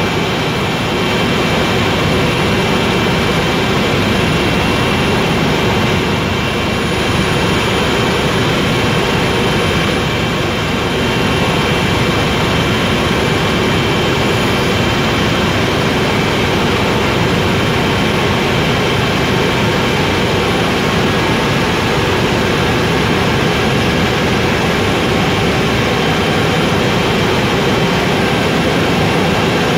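Helicopter in flight heard from inside the cabin: the engine and rotor make a loud, even drone, with a steady high whine over it.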